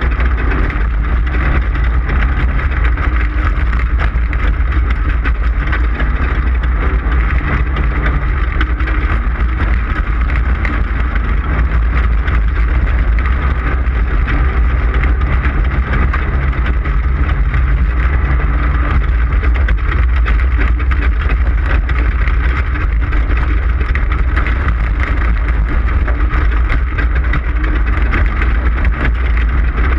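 Off-road desert race car's engine running steadily at speed, with a heavy low rumble and many small rattles and knocks throughout.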